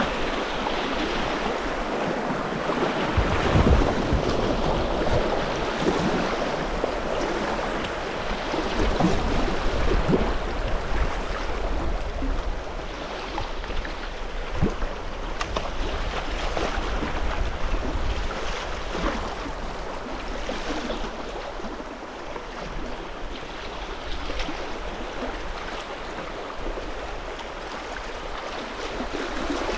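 Shallow river rapids rushing and splashing around a kayak's hull as it runs downstream, with a low rumble of wind on the microphone, strongest in the first half.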